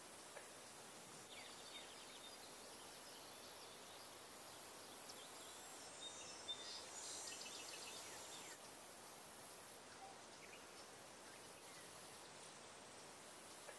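Faint rural outdoor ambience: a steady high-pitched insect hiss with a few bird chirps, most of them about seven seconds in.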